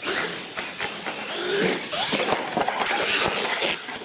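Radio-controlled monster truck running over ramps on a concrete floor: motor whine rising and falling over tyre noise, with several sharp knocks in the second half as it lands and tumbles.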